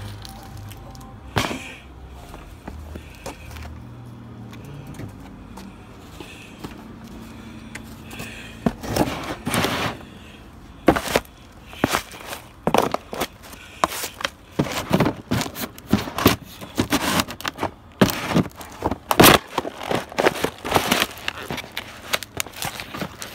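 Cardboard shoe boxes crushed flat underfoot: repeated crunching, crackling and crinkling of folding cardboard, starting about nine seconds in after a quieter stretch with a faint low hum.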